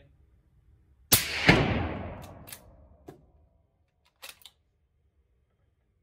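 A single suppressed .308 rifle shot through a Thunder Beast 338SR suppressor about a second in, with a second sharp report about half a second later and the echo dying away over about two seconds; a few faint clicks follow. The shot reads about 124 dB at the shooter's ear, which is like suppressed .22 numbers.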